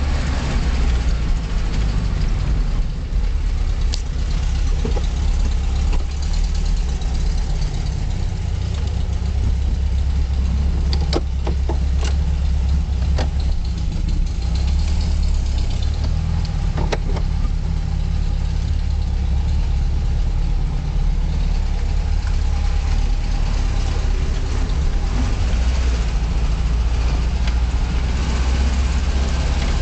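Car engine and road noise heard from inside the cabin, a steady low drone while driving slowly, with a handful of sharp clicks near the middle.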